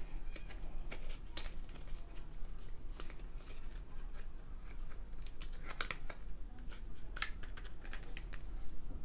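Scattered light clicks, taps and faint rustles of an AirPods Pro box's cardboard and paper packaging being handled, a few of them coming in quick clusters.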